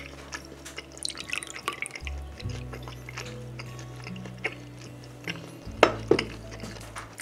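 Soju pouring from a glass bottle into a small shot glass, with drips and trickles and small ticks, over steady background music; a louder knock comes about six seconds in.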